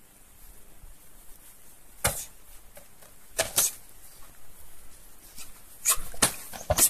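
Karate sparring strikes landing: about six sharp slaps of kicks and punches, spaced irregularly, two of them close together.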